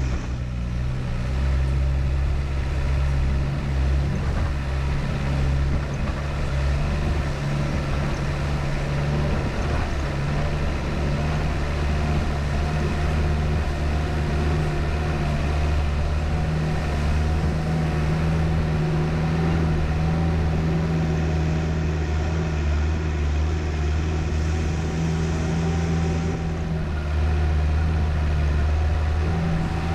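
Four-wheel-drive vehicle's engine running at a steady, even note while it crawls along a rough dirt track, heard close up from the bonnet.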